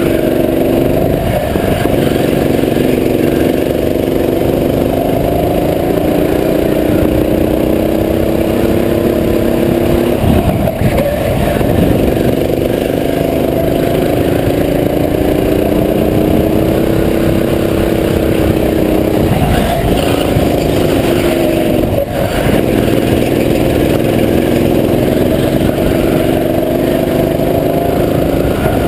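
Go-kart engine heard from onboard the kart, running hard at lapping speed: its pitch climbs slowly along each straight, then drops briefly as the kart slows for a corner, about four times.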